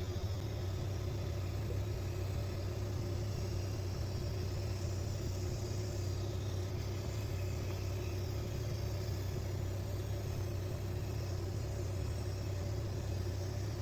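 A workshop machine running steadily: a constant low hum with an even hiss over it, with no change in speed.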